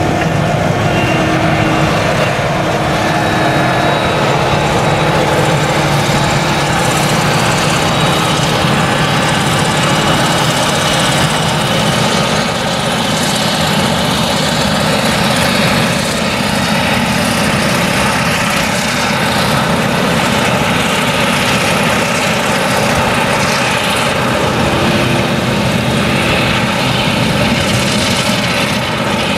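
Claas Jaguar 970 forage harvester's MAN V8 engine running steadily under load while it chops sorghum, mixed with the engine of the tractor pulling the trailer alongside.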